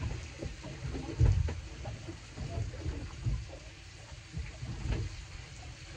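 Irregular low rumbling thumps of wind buffeting the microphone, over a steady hiss of sea and wind around a small boat at sea.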